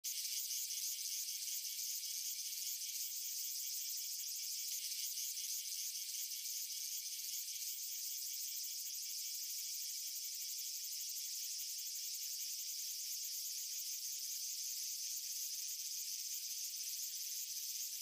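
Cicada buzzing: a steady, high-pitched shrill drone with a fine, rapid pulse.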